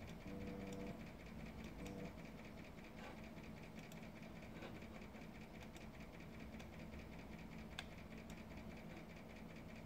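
Faint steady hum of electronic equipment, with a low pulsing tone twice in the first two seconds and a few faint clicks.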